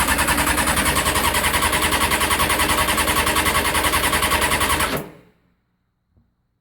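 Honda CBR600F4i's inline-four engine being turned over by its electric starter, with an even pulsing of about a dozen beats a second, stopping suddenly about five seconds in. The starter runs because the starter relay is bypassed with a jumper.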